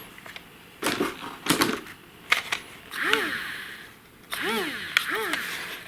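Clicks from switching on and handling a small foam toy RC plane and its push-button transmitter, followed in the second half by a few short tones that rise and then fall in pitch.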